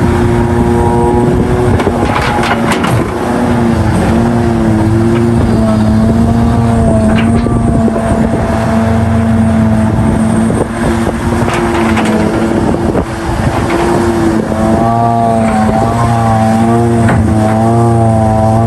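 Hitachi Zaxis 670LC excavator's diesel engine running steadily under load. Its note dips and rises repeatedly as the hydraulics work, with a few sharp knocks every few seconds.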